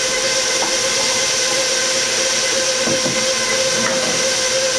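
Electric bowl-lift stand mixer running on a low speed, setting 2 of 10, mixing flour and yeast mixture into dough: a steady motor whine over an even hiss.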